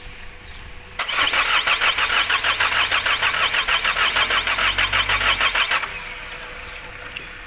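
Car diesel engine being cranked by its starter motor: a loud, fast, even pulsing that begins about a second in and stops abruptly after about five seconds.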